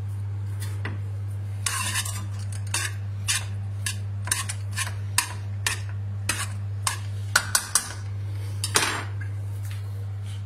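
A metal spoon clinking and scraping against a pan of rigatoni as the pasta is stirred: irregular clinks, about fifteen over several seconds, over a steady low hum.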